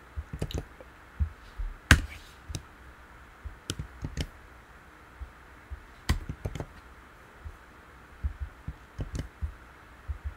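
Irregular computer keyboard keystrokes and mouse clicks, a few at a time with pauses between, each with a dull thud. The sharpest click comes about two seconds in.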